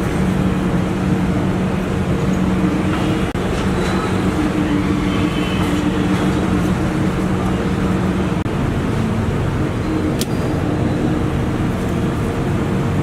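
Steady mechanical hum under street traffic noise, with a constant low drone throughout. A single sharp click sounds about ten seconds in.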